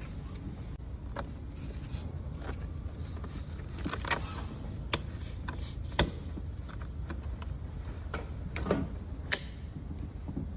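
Irregular sharp clicks and knocks of metal tools and parts being handled during engine work, over a low steady hum.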